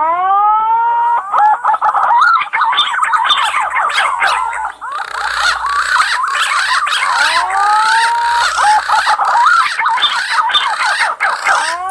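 Green pigeons (punai) calling: a dense run of overlapping, wandering whistled notes, with long upward-gliding whistles at the start and again past the middle. Faint clicking runs through the second half.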